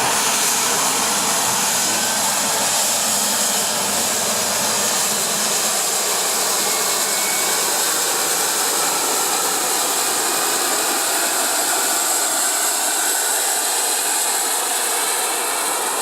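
Rescue helicopter's turbine engine running, a loud steady rushing hiss.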